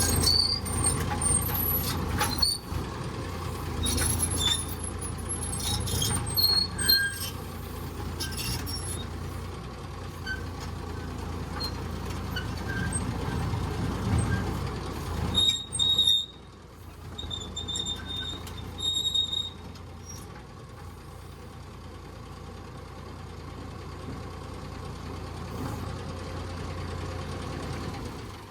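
R5 pile driver's engine running steadily, with scattered clanks and brief high squeals over the first twenty seconds or so, then just the steady running.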